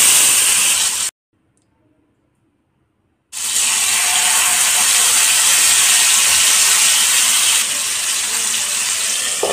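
Marinated chicken drumsticks sizzling in hot oil and ghee as they are laid into a frying pan. The sizzle cuts out for about two seconds about a second in, then resumes and eases slightly near the end.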